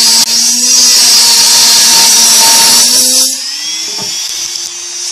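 Dremel rotary tool with a thin cut-off wheel grinding into the metal side of a tin can: a loud, harsh grinding over the motor's whine. About three seconds in the wheel comes off the metal, the grinding stops and the motor runs free, its whine rising slightly in pitch.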